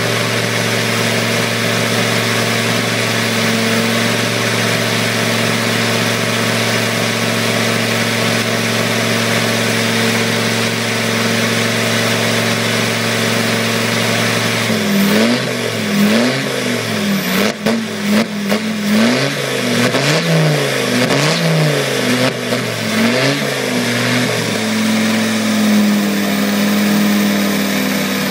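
Land Rover Defender 90's engine idling steadily, then revved in a series of quick blips from about halfway, each rising and falling back, before it settles to idle again near the end.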